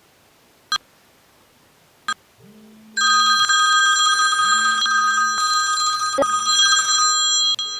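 Telephone ringing with an electronic ringtone made of several steady high tones. It starts loudly about three seconds in and stops shortly before the end, when the call is answered. Before it come two sharp clicks and a low hum that is heard twice.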